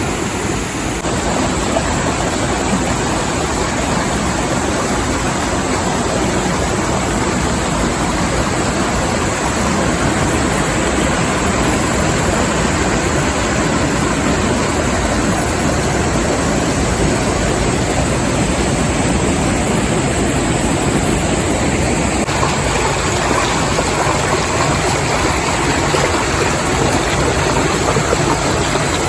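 Steady, loud rush of water in a rocky mountain river.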